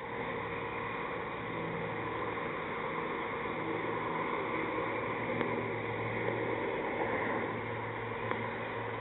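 Steady outdoor background hiss with a low steady hum underneath, and a couple of faint ticks.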